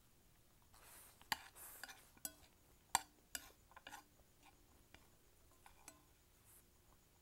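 Eating Indomie Mi Goreng fried noodles with chopsticks: scattered sharp clicks of the chopsticks against a plate, with a couple of short slurps of noodles about a second in.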